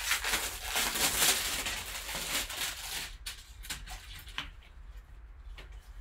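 Paper and plastic packaging rustling and crinkling as a sealed card-box envelope is opened and handled, dense for about the first three seconds, then thinning to a few light taps and rustles.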